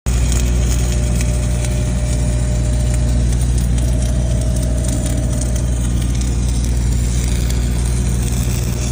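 Flux-core wire welding with an LN-25 feeder: the arc crackles steadily over the constant low drone of an engine-driven welding machine.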